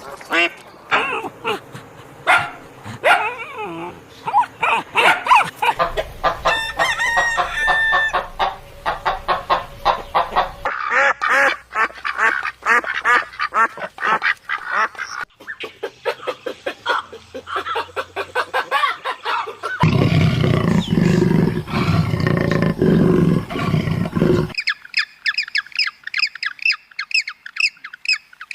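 Poultry calling in a run of short clips, one after another. A loud low rumble lies under the calls for a few seconds about two-thirds of the way through, and near the end there are only fast, high-pitched calls repeated several times a second.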